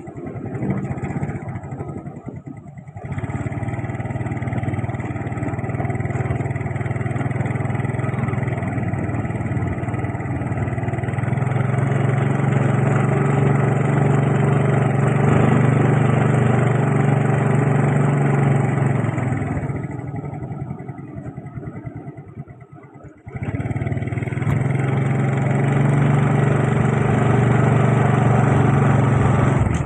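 Small motorcycle engine running as the bike is ridden along a road. The engine note drops away twice, briefly about two seconds in and for a few seconds around twenty seconds in, then picks up sharply again as the throttle opens.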